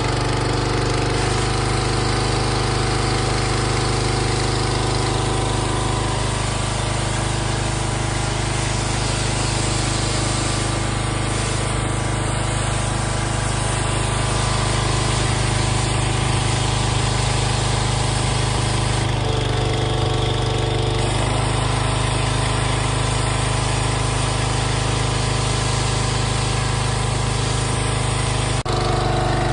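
Gas pressure washer engine running steadily, with the hiss of water spraying from the high-pressure gun. The sound shifts a little a few times and there is a brief break near the end.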